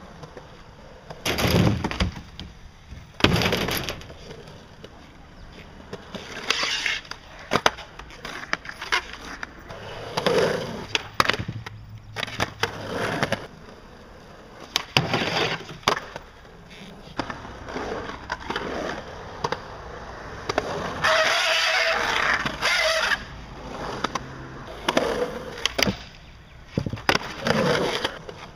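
Skateboard on concrete: wheels rolling, broken by a series of sharp board clacks and landings from tricks on ramps and a box. About two-thirds of the way through comes a longer scraping grind or slide lasting a couple of seconds.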